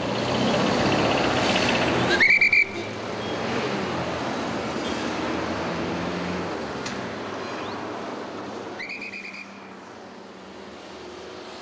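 A traffic police whistle gives two short, shrill blasts, about two seconds in and again about nine seconds in, over steady city street traffic that fades toward the end.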